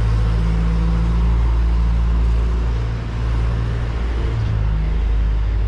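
Steady low rumble of street traffic with an engine-like hum, dipping briefly about three seconds in.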